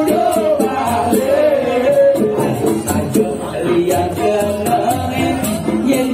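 Balinese gamelan gong ensemble playing an instrumental passage between sung verses: a melody on metal keyed instruments over a steady beat with quick, frequent strokes of small cymbals.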